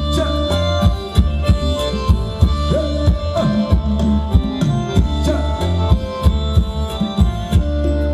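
Band playing Thai ramwong dance music, with a steady drum beat and hand-drum strokes under held melody notes.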